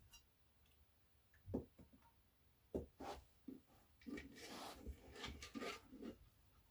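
Faint handling noises as subwoofer parts are worked on by hand: a few light knocks, then a couple of seconds of rubbing and scraping.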